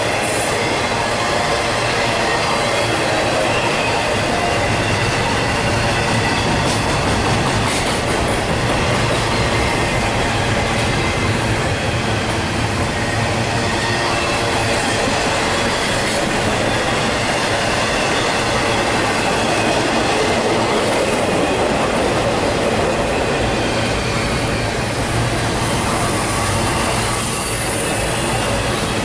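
Double-stack intermodal container freight cars rolling past close by: a steady, loud rumble and clatter of steel wheels on rail, with a thin high squeal of wheels running through it.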